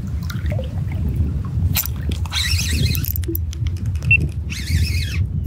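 Water sloshing and splashing close to the microphone as a person wades through shallow saltwater, in several uneven splashes over a steady low wind rumble.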